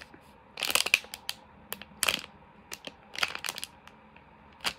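Clear plastic packaging crinkling in several short bouts, with small clicks in between, as a squishy toy is squeezed through the bag.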